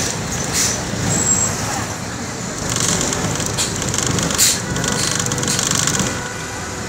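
Road vehicle running and traffic noise heard from a moving vehicle, with several brief hissing bursts about three to four and a half seconds in.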